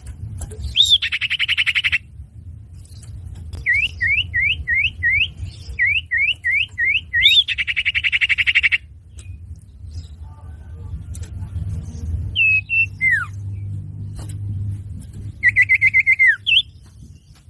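Common iora (cipoh/sirtu) calls in a bird-catching lure recording. A rising note runs into a fast buzzy trill, then comes a quick run of about ten rising whistles and another buzzy trill, and near the end a few falling notes and a short trill. A steady low hum lies underneath.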